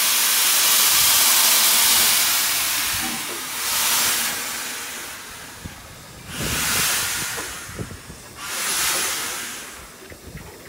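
Hunslet Austerity saddle-tank steam locomotive hissing steam as it moves slowly. A long, loud hiss runs for the first three or four seconds, then three shorter blasts of steam follow about two and a half seconds apart.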